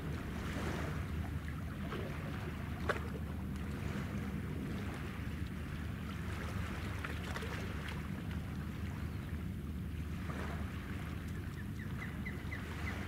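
Steady low rumble of a ship's engines or machinery, with a steady hiss over it. A single sharp click comes about three seconds in.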